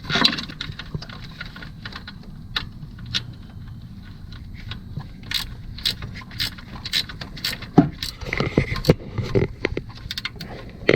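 Metal hand tools at work on bolts: scattered sharp clicks and clinks of a wrench, with a run of clicks about two a second in the middle and a few heavier knocks near the end.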